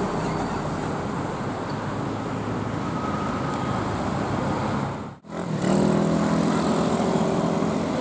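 Tour bus diesel engines and road traffic: a Mercedes-Benz OF 917 bus runs past with a steady rushing noise, then the sound cuts off abruptly about five seconds in and comes back louder with another bus engine's steady hum.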